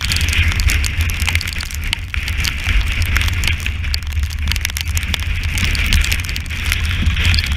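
Strong wind buffeting the microphone of a deck-mounted action camera on a sailing yacht in heavy weather, a steady low rumble, with sea spray spattering against the camera housing in many small irregular hits over a rushing hiss of water.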